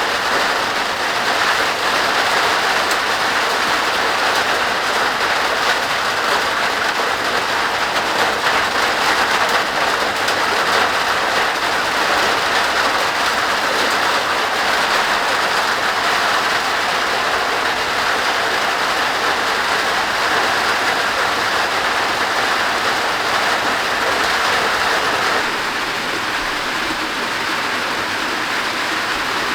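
Heavy summer downpour: dense, steady rain noise, dropping a little in level about 25 seconds in.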